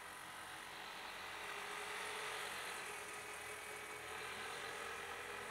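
Small engine of a three-wheeler auto-rickshaw running steadily as it drives, getting a little louder about two seconds in.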